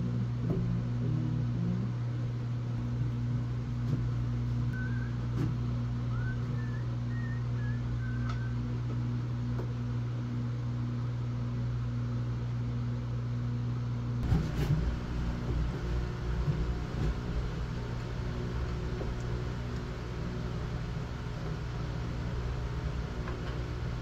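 Steady electric hum of a running floor fan, with occasional faint clicks from handling cabinet hardware.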